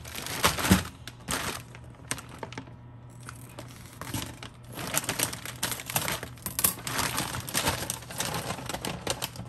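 Plastic frozen-food bag crinkling as it is handled and torn open along its tear strip, with crackles coming thickest in the first couple of seconds and again from about four seconds in.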